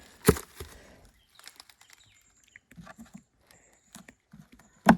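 Wooden beehive frames and boxes being handled: a sharp knock just after the start, light scrapes and clicks, then a second loud knock near the end.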